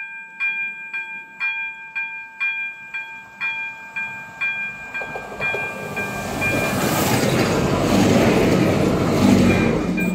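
A level-crossing warning bell dinging about twice a second, growing faint as the rumble of a two-car regional train rises. The train approaches and passes close by, loudest in the last few seconds.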